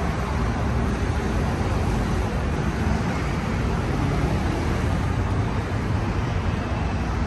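Steady city street ambience: a continuous wash of road traffic noise.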